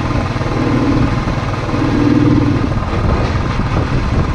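Royal Enfield single-cylinder motorcycle engine running at a steady cruise, heard from the rider's seat.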